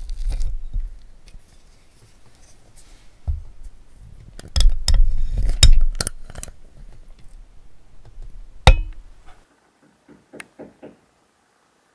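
Spoon clinking against a glass mixing bowl as sticky cookie dough is scooped out and set onto a parchment-lined baking tray: several sharp clinks over a low handling rumble that stops suddenly about nine and a half seconds in, followed by a few faint ticks.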